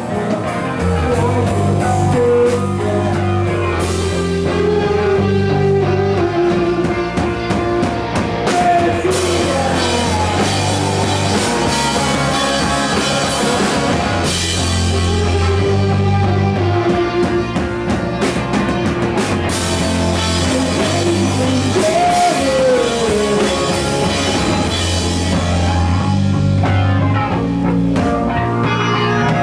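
Rock band playing loud grunge: guitar and drum kit, with a lead line that slides in pitch in places.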